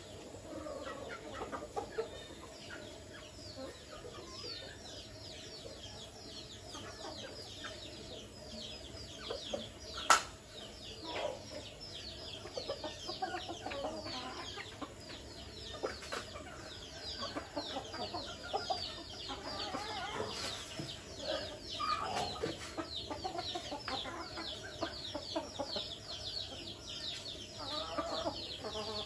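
Chickens clucking as they feed, over a constant run of quick, high chirps that each fall in pitch. A single sharp knock comes about ten seconds in.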